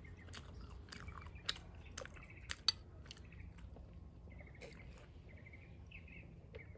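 Close-up mouth sounds of someone chewing soft pasta: wet clicks and lip smacks, the sharpest about two and a half seconds in, fading to quieter mouth sounds in the second half. A small bird chirps faintly a few times near the end.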